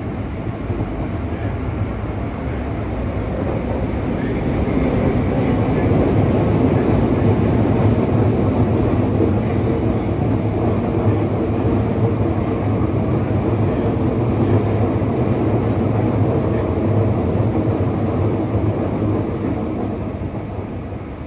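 Yokohama Municipal Subway 3000R train running, heard inside the passenger car: a steady rumble of wheels on rails and car body noise. It grows louder a few seconds in and eases off toward the end.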